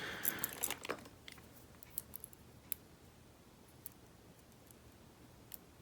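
A few faint, scattered metal clicks as a key is worked in the keyway of a vintage warded padlock whose keyway is bound up.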